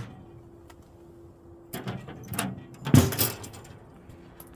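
Door being opened and shut, with a few knocks and scrapes, then the loudest bump about three seconds in.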